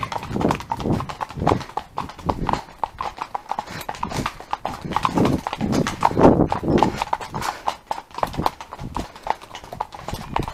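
Horse's hooves clip-clopping in a steady, even rhythm of footfalls, several a second, as it is ridden.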